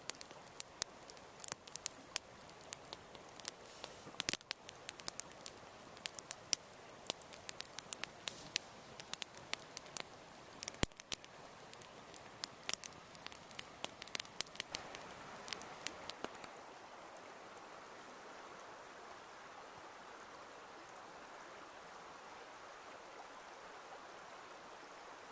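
Wood campfire crackling, with many sharp irregular pops, for about the first sixteen seconds; then the steady rush of a shallow river flowing.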